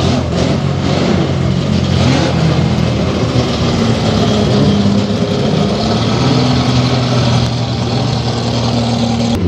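Historic touring car race engine running in the pits, mostly at a steady idle, with a short rev that rises and falls about two seconds in.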